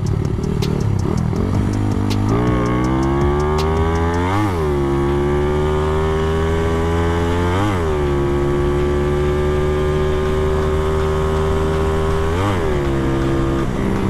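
Tuned Honda CB motorcycle's four-stroke single accelerating hard on a test run. It runs rough for the first two seconds, then the engine note climbs and drops sharply at each of three upshifts.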